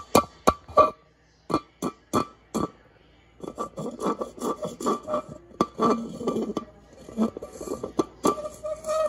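Clear plastic cup clicking and knocking on the floor several times, then a few seconds of rapid rubbing and scraping with a ringing plastic tone.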